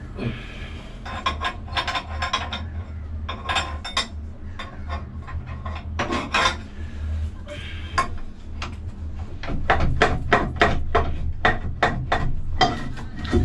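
Metal parts clinking, knocking and scraping as a marine diesel's gearbox bell housing is worked loose and eased off its guide pin, with a quick run of knocks about four a second near the end. A steady low hum runs underneath.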